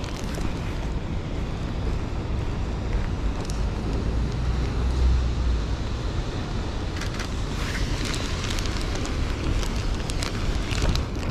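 Wind rumbling on the action camera's microphone over city road traffic on wet streets. Between about seven and eleven seconds in, the plastic rain bag around a handheld camera crinkles and rustles with short clicks as the camera is handled.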